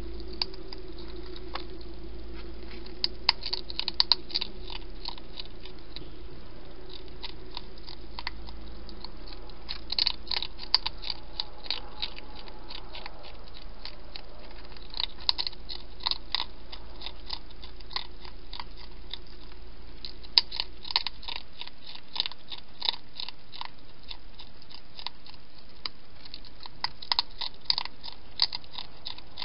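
A wild hedgehog chewing and crunching its food at a bowl, in bouts of rapid sharp clicks a few seconds apart.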